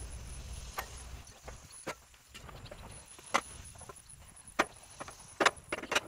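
Irregular sharp knocks and clunks, about seven of them, the loudest in a quick cluster near the end, as a heavy log is shifted and pushed into place on a portable sawmill's steel bed.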